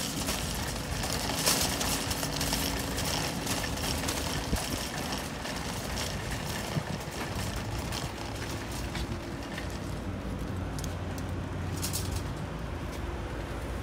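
Plastic shopping cart rolling across an asphalt parking lot: a steady noise of the wheels on the pavement with scattered clicks. A low steady hum joins for a couple of seconds near the end.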